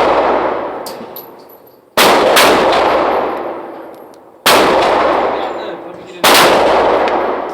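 Glock 22 .40-calibre pistol fired three times, about two seconds apart. Each shot has a long echoing decay, and the tail of a shot fired just before is still fading at the start.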